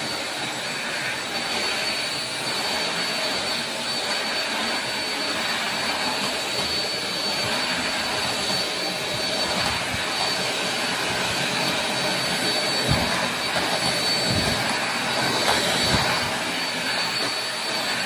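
Deerma corded vacuum cleaner running loud and steady while vacuuming a tile floor, a rushing of air with a constant high whine over it. A few low bumps come in the last few seconds.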